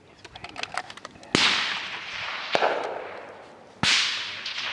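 Two loud rifle shots about two and a half seconds apart, each a sharp crack followed by a long rolling echo that fades over a second or two, with a fainter crack between them.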